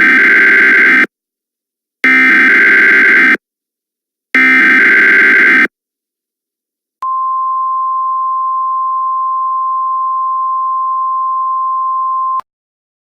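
Emergency Alert System tones. Three loud, harsh data bursts of about a second each, one second apart, make up the digital header. Then a quieter single steady attention tone holds for about five seconds and cuts off sharply.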